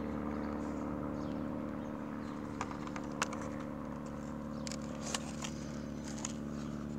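A few short, sharp clicks and taps from small plastic gear being handled, over a steady low hum.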